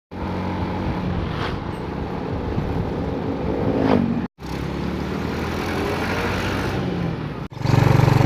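Motor vehicle engine running on the road, rising in pitch once as it revs, in three clips cut together. In the last clip, near the end, the engine is louder with an even pulsing beat.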